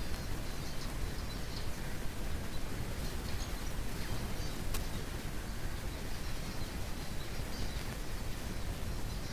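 A flock of finches in a bare tree gives scattered, faint, short high chirps over a steady low rumble.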